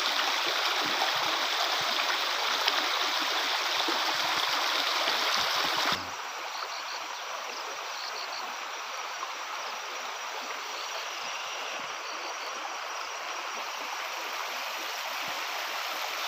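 Water running steadily in a stream, a continuous even rush. About six seconds in, it drops suddenly to a quieter level and stays there.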